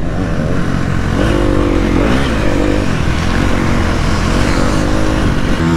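KTM 250 SX-F single-cylinder four-stroke motocross bike engine running hard along a dirt straight, its pitch rising and falling several times as the throttle opens and eases off.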